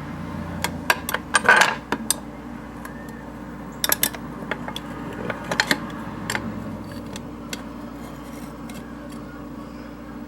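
Clinks and knocks of a cooking pan and a pipe bowl being handled, loudest in a short clatter about a second and a half in, with scattered clicks after, over a steady low hum.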